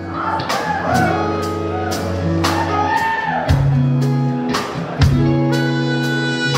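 Live R&B band playing the instrumental opening of a song: sustained chords over bass notes, with drum hits keeping a steady beat.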